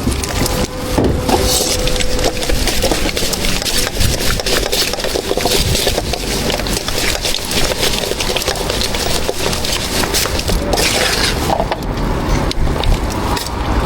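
Continuous, irregular scraping, rubbing and knocking of food being handled, seasoned and packed at the counter.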